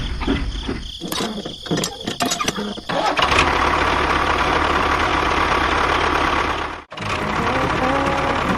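An engine cranking with a rhythmic clatter for about three seconds, then starting and running steadily, with a momentary break near the end.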